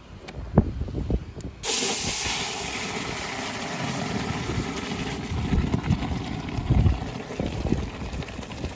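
Mutton, tomatoes and their cooking liquid poured from a pressure cooker into a hot steel karahi: a couple of knocks of the pot, then a loud steam hiss and sizzle starts suddenly about two seconds in as the liquid hits the hot metal, and keeps going with low splashing underneath.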